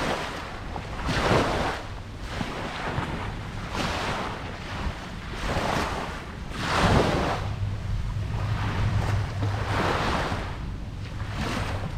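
Ocean surf: small waves breaking and washing in one after another, a rushing swell about every one and a half seconds, over a low rumble of wind on the microphone.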